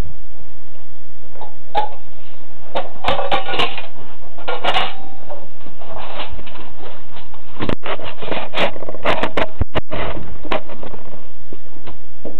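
Camera handling noise as the camera is carried and swung around a small room: a string of knocks and clicks, with rubbing and scraping bursts a few seconds in and again about two-thirds of the way through.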